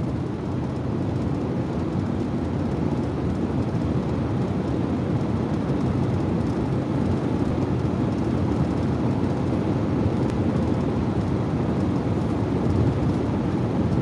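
Steady road noise inside a car cruising on a highway: an even low rumble that neither rises nor falls.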